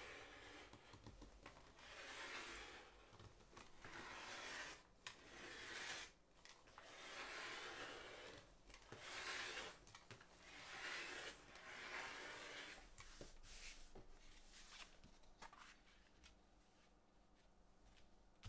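Hand work on leather: a series of faint rubbing or scraping strokes, each lasting a second or two, dying away about three quarters of the way through, with a few small clicks.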